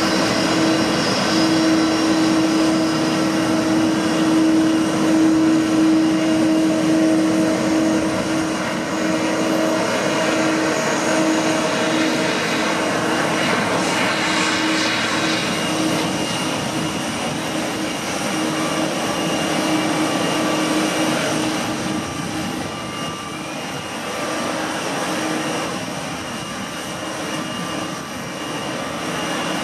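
Airbus A320 jet engines at low taxi thrust as the airliner taxis past: a steady jet rumble with a constant whine, loudest in the first half and easing a little toward the end.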